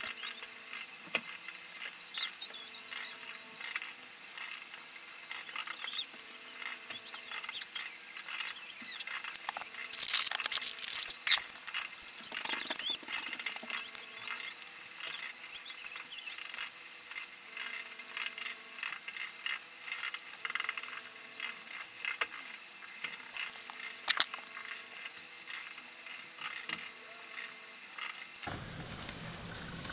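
Close-up handling sounds of small crafting parts: quick crinkling of a plastic bag and light clicks and squeaks of small metal rings being worked onto kraft paper tags. The loudest rustling comes about ten to thirteen seconds in. The handling stops shortly before the end.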